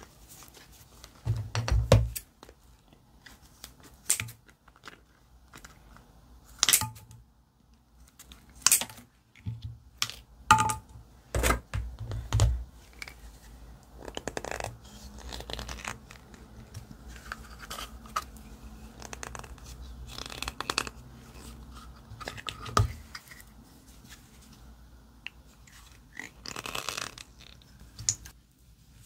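Slime being handled and mixed by hand, with sharp sticky pops and crackles at irregular intervals and quieter squishing between them.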